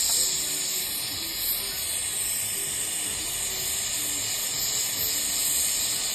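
Jeweller's gas torch flame hissing steadily while melting scraps of 18ct gold jewellery in a melting dish.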